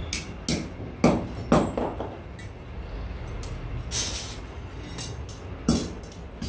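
Hand hammer striking a flat iron strip on a steel anvil block: four ringing blows about half a second apart in the first two seconds, then lighter metal clinks, and one more sharp metal clank near the end.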